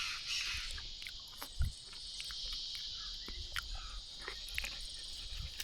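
Steady high-pitched chorus of insects such as crickets or cicadas, with scattered small clicks and a low thump about one and a half seconds in.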